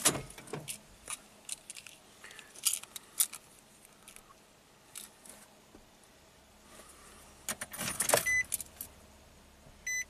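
A bunch of keys jingling and clicking as an ignition key is handled, pulled out and put back into the ignition cylinder of a 2010 Nissan Frontier and switched on, a step in registering the key to the truck's immobilizer. There is a louder flurry of jingling about eight seconds in, then a short electronic beep, and another beep at the very end. The engine is not running.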